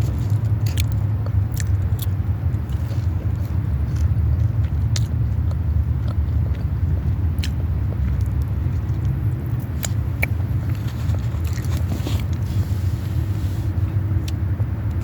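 A person chewing and biting into food close to the microphone, with scattered sharp crunches and mouth clicks, over a steady low rumble.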